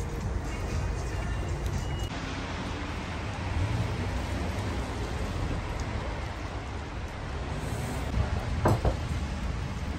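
City street traffic noise, a steady low rumble and hiss of cars on a wet road, with one short, louder sound near the end.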